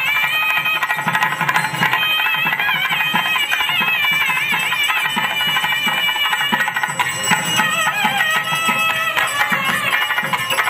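Traditional temple music: a high melody that slides and bends between notes over a steady run of drum beats.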